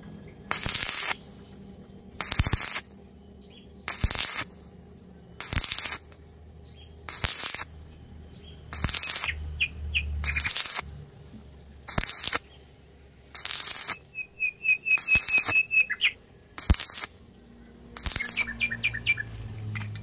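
Stick (arc) welding with a coated electrode, the arc struck and broken in a steady rhythm: a half-second burst of crackling hiss about every one and a half seconds as each short stitch of weld is laid on the gate's square-tube joint. Short series of bird chirps come in between, about halfway through and near the end.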